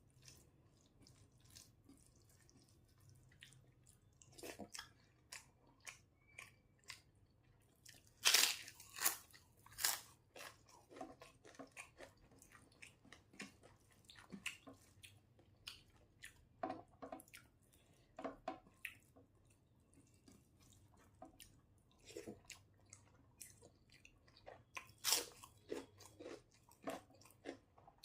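Close-up eating sounds: chewing and mouth noises of someone eating a rice meal, with scattered short sharp clicks and a few louder ones about eight to ten seconds in and again near the end.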